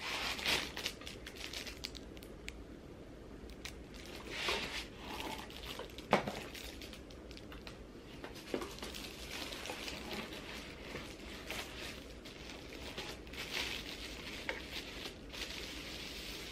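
Rustling and crinkling of packaging as a cardboard product box is unpacked, with scattered clicks and knocks of the contents; the sharpest knock comes about six seconds in.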